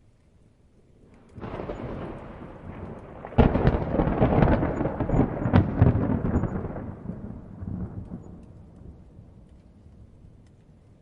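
Thunder: a rumble sets in about a second and a half in, then a sharp crack about three and a half seconds in. Crackling rolls on for a few seconds and slowly fades to a low rumble.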